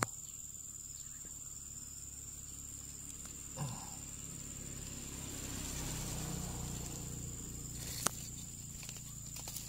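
Steady high insect trill, with handling of a plastic poly pipe compression fitting over it: a short knock a little over three seconds in, a swell of rustling in the middle, and a sharp plastic click about eight seconds in as the fitting is pulled apart.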